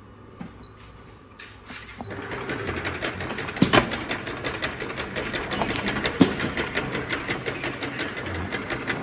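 Round-bottle clamp labeling machine running: a rapid mechanical clatter starts about a second and a half in and keeps going, with two sharp clacks about four and six seconds in, then dies away at the end.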